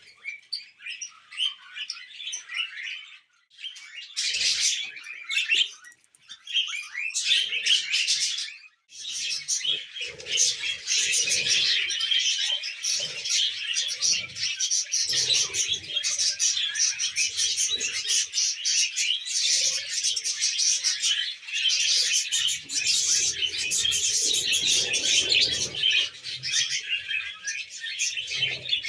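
Budgerigars chattering and warbling in a rapid, busy stream of high chirps. The chatter has a few brief breaks in the first nine seconds, then runs on without pause.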